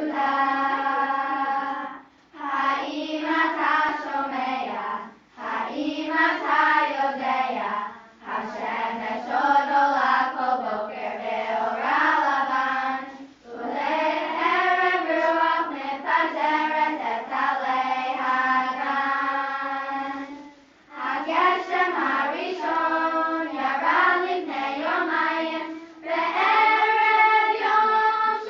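A group of girls, a children's choir, singing one melody together without accompaniment, in phrases separated by brief pauses for breath.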